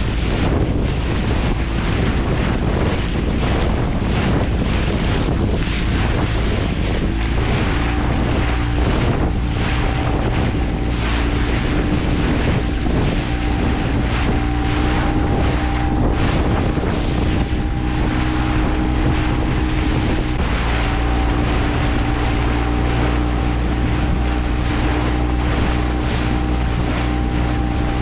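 A small motorboat under way: wind buffets the microphone hard and water rushes and splashes past the hull. From about eight seconds in, a steady engine hum holds underneath.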